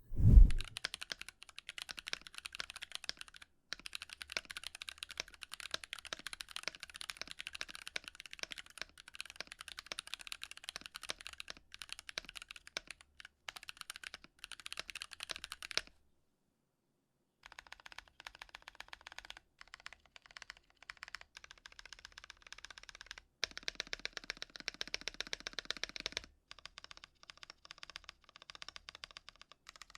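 Fast typing on a mechanical keyboard fitted with Holy Panda tactile switches, a clacky, higher-pitched switch, in a sound test. Rapid key clicks run on, stop for about a second and a half midway, then resume, with a denser, louder stretch a few seconds after that.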